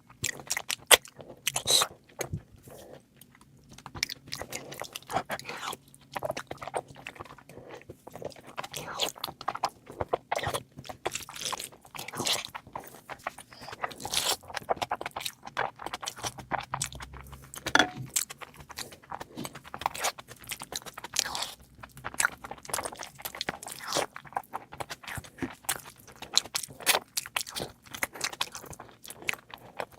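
A person chewing and biting food close to the microphone: many irregular sharp crunches and clicks, one after another.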